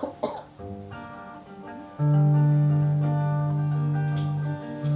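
Acoustic guitar playing a song's introduction: a few single plucked notes, then from about two seconds in a louder low note ringing on steadily, with a brief dip near the end.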